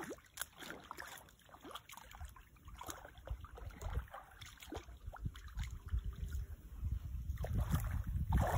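Small splashes and sloshing of shallow lake water as someone wades in from the shore, with wind buffeting the microphone and growing stronger toward the end.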